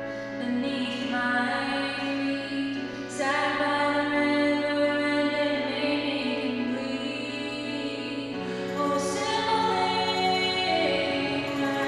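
A young woman singing solo into a microphone, holding long notes, over quiet sustained low accompaniment notes.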